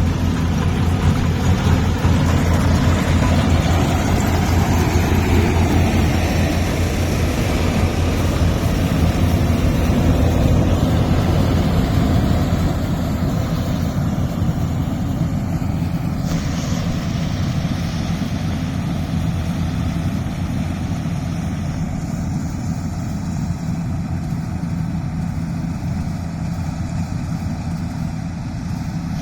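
Yanmar rice combine harvester's diesel engine running steadily, slowly getting quieter over the second half.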